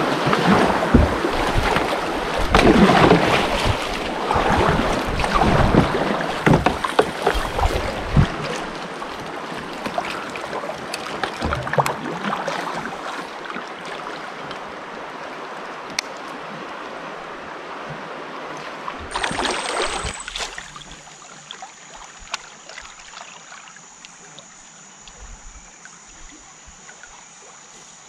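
River water rushing and splashing around a kayak in fast current, loudest and most turbulent in the first few seconds, then easing to a steadier wash. About twenty seconds in, the water sound cuts away to a steady, high-pitched insect drone.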